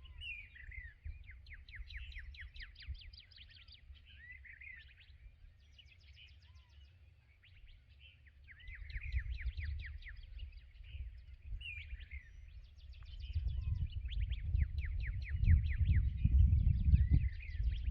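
Dawn chorus of songbirds: a rapid high trill repeated every second or two, with short curved whistled notes between. A low rumbling noise grows loud in the last few seconds, louder than the birds.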